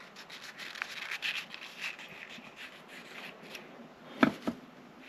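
Soft rubbing and scraping of hands handling leathery ball python eggs in a plastic tub during egg cutting, with two quick knocks a little after four seconds in.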